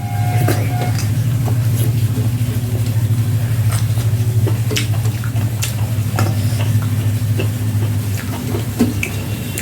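A ladle stirring and scraping through a pot of cooked masala khichudi, with scattered light clicks and scrapes over a steady low hum.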